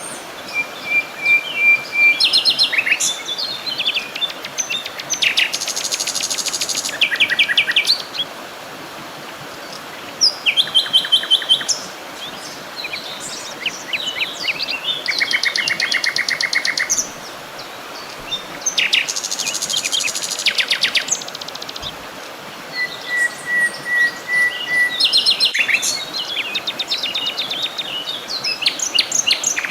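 Several songbirds singing: fast trills of repeated notes and short chirps, one phrase after another, over a faint steady hiss.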